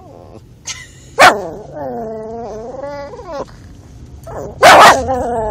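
A small Jack Russell–Chihuahua mix dog barking: two sharp, loud barks, one about a second in and one near the end, with long, wavering whining cries between and after them. These are happy greeting barks, not aggressive ones.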